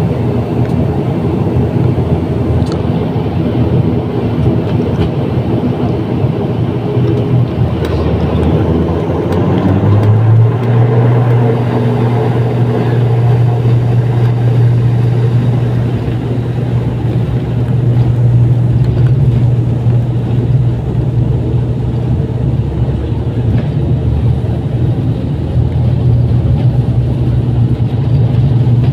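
Turboprop airliner's engines and propellers heard from inside the cabin, powering up about ten seconds in with a brief rise in pitch, then holding a steady loud drone as the plane speeds down the runway on its takeoff roll.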